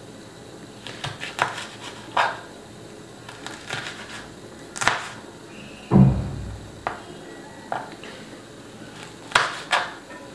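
Chef's knife slicing dalle chillies on a cutting board: irregular sharp taps of the blade striking the board, about ten in all, with one heavier thud just past the middle.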